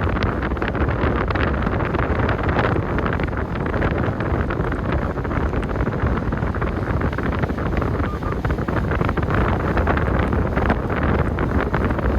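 Wind buffeting the microphone of a moving car, over a steady low road rumble.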